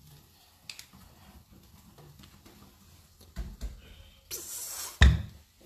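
Plastic cap of a cooking-oil bottle being twisted open by hand: faint clicks and rustles, a couple of dull knocks, a brief hiss, then one loud thump near the end.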